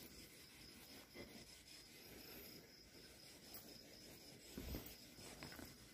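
Near silence: faint night ambience with a thin, steady high insect trill, likely crickets, and one soft low thump a little before the end.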